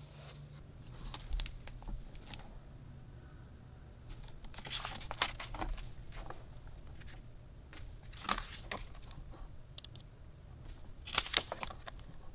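Thick pages of a hardcover photobook being handled and turned by hand: paper rustles and soft taps in about four separate bursts, over a faint steady low hum.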